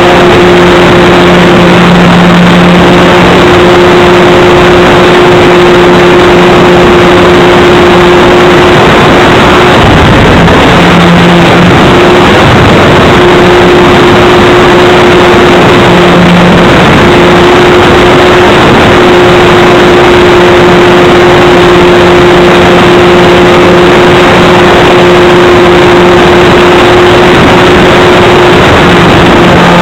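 Electric motor and propeller of a Flite Test Baby Blender RC plane heard through its onboard camera's microphone: a steady, loud drone mixed with wind rush, overloading the mic. The steady tone breaks off briefly about ten seconds in and again a little past halfway, as the throttle changes.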